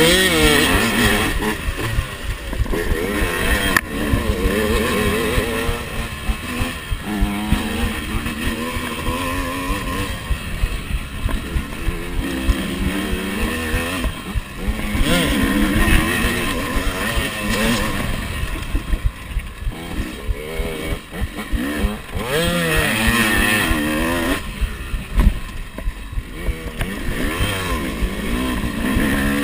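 Yamaha YZ motocross bike engine revving up and dropping off over and over as the rider works the throttle and gears around a dirt track, with a second YZ riding close ahead. A steady low rumble of wind runs underneath.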